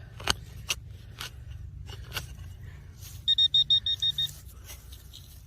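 Metal detector giving a rapid run of high beeps, about eight in a second, a little past the middle, signalling metal close by. Before it come a few sharp scrapes and clicks.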